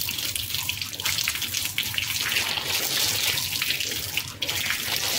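Water running from a tap into a sink, splashing as hands cup it onto the face. It dips briefly about four seconds in.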